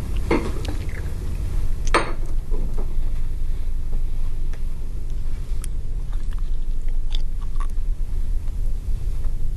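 A steady low rumble, with brief wet sputtering and paper-napkin sounds in the first couple of seconds: espresso being spat out into a napkin.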